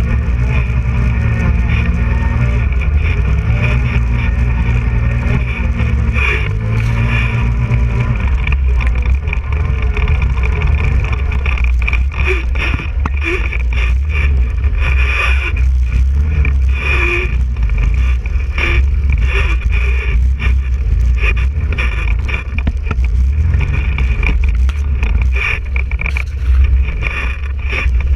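ATV engine running under load while the quad is ridden over muddy, rough ground. The engine note holds steady, dipping briefly around six seconds, then gives way about eight seconds in to a deeper rumble broken by many short knocks and rattles from the bumpy track.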